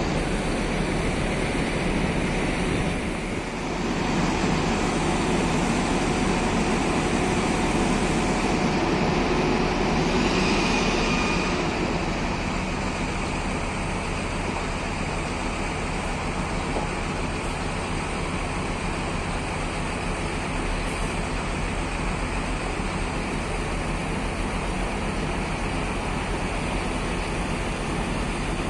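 Large coach bus's diesel engine running steadily with a low hum, slightly louder for several seconds after a brief dip near the start.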